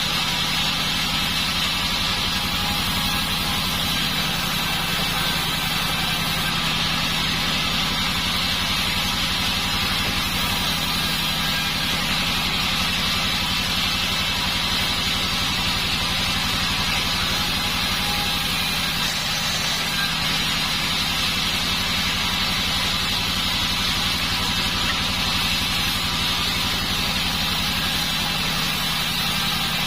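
Band sawmill running steadily: a constant low machine hum with a steady high hiss over it.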